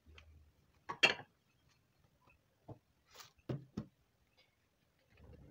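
A few short knocks and clicks of kitchen things being handled, the loudest about a second in, then a brief rustle and two more knocks in quick succession a little later.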